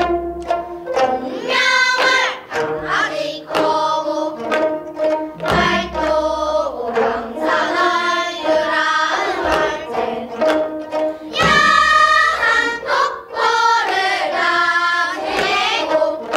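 Gayageum byeongchang: a group of children singing a danga (short pansori-style song) in unison with wavering vibrato while plucking gayageum, with low drum strokes now and then.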